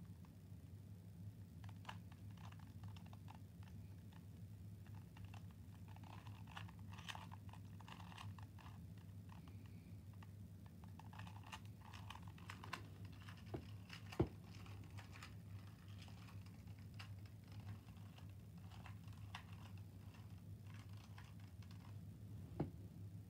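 A plastic 2x2 puzzle cube being turned by hand: faint, quick, irregular clicking of its layers, busiest in the middle, with two sharper louder clicks, one about two-thirds of the way through and one near the end. A steady low hum runs underneath.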